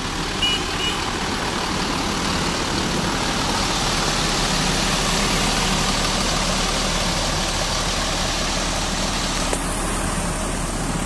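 A coach's diesel engine running close by over steady, dense road traffic, with a brief high beep about half a second in.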